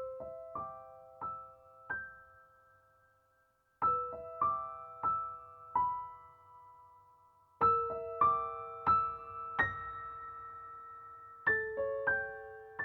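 Background music: soft solo piano playing slow phrases of single notes, about four to a phrase, each note left to ring and fade.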